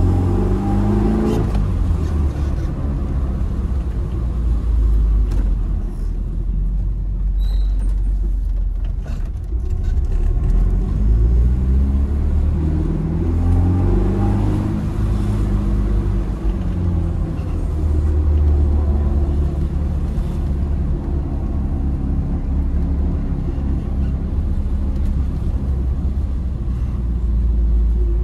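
Tofaş car's four-cylinder engine with a loud Konya-style aftermarket exhaust, heard from inside the cabin while driving: the engine note climbs under acceleration and drops at each gear change, several times over.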